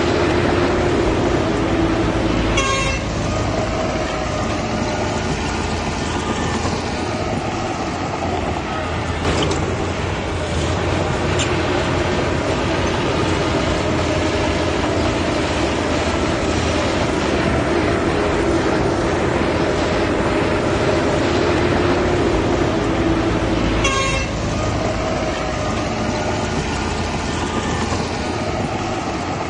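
Heavy diesel machinery running steadily under load. Two short bursts of rapid ticking come about three seconds in and again near the end.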